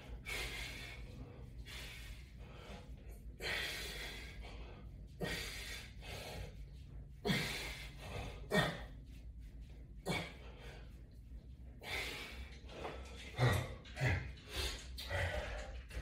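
A man breathing hard from exertion, with short, sharp exhales every second or two.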